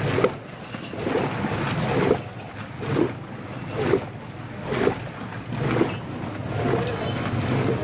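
Mango juice full of fruit chunks and ice sloshing as a steel ladle stirs it in a large metal pot. The strokes come about once a second.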